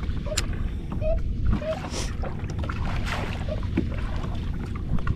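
Wind rumbling on the microphone over an open boat, with water noise against the hull and a few short sharp clicks.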